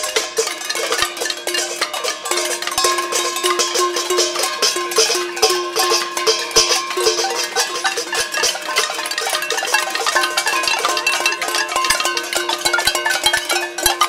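Many saucepans and pots being banged by a crowd: a dense, irregular clatter of metal strikes with ringing metallic tones held underneath.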